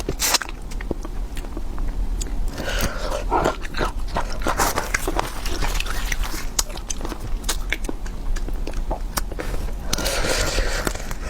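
Close-miked eating: a person chewing and biting, with many wet clicks and smacks, and longer noisy mouth sounds about three seconds in and near the end. A steady low hum runs underneath.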